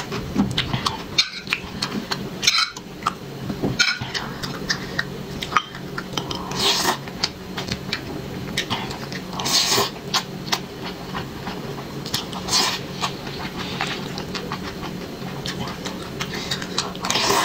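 Close-miked eating sounds: wet chewing and slurping of wide flat noodles and rice, with chopsticks clicking against a glass bowl, over a steady low hum.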